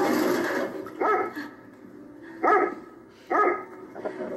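German shepherd barking three times, short sharp barks about a second apart.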